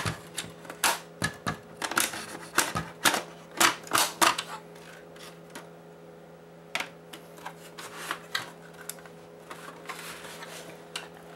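Hard plastic of a PlayStation 4's internal frame clicking and knocking as it is pried and worked loose by hand: a quick run of sharp clicks in the first few seconds, then scattered clicks, over a faint steady hum.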